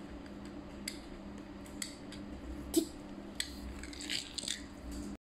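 A few faint, scattered clicks and taps of small plastic toys, a toy car and building blocks, on a hard stone floor, over a steady low hum.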